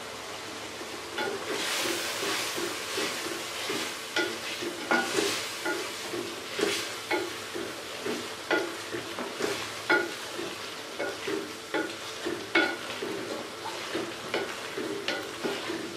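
A wooden spatula stirring and knocking against a metal pot about once a second, while chicken and potatoes sizzle in oil and masala as they are fried (bhuna).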